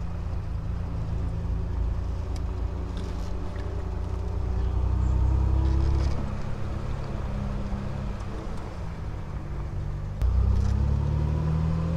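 Triumph Vitesse 2-litre straight-six engine driving along, heard from the open-top cockpit. The revs climb and the engine gets louder for a couple of seconds, ease off about six seconds in, then pick up sharply about ten seconds in and climb again.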